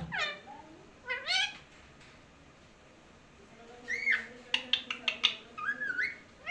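Pet parrot calling: two short calls that bend in pitch in the first second and a half, then, from about four seconds in, a run of sharp clicks and short chirps.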